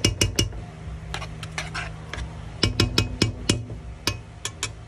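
A spoon repeatedly tapping and clinking against a pan, about fifteen sharp knocks, some with a brief ring, as Korean chili paste is worked into a thick rice paste. A steady low hum runs underneath.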